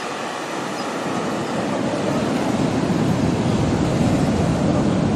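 Ocean surf breaking and washing on a sandy beach: a steady rush of noise that grows gradually louder.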